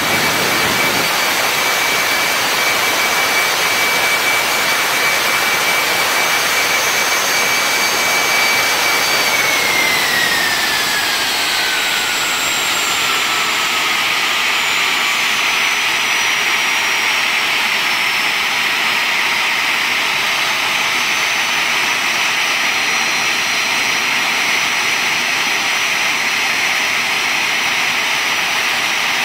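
A twin-engine jet airliner's engines running during a ground engine run-up: a loud, steady rush with a high whine. About a third of the way through, the whine slides down in pitch over several seconds while the rush carries on.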